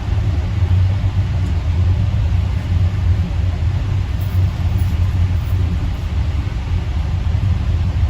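Steady low rumble of an AirTrain JFK people-mover car running along its guideway, heard from inside the car.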